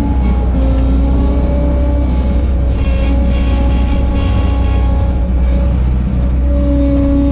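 1988 Bobcat 743 skid steer's engine running, a steady deep drone whose pitch shifts a little as the machine works.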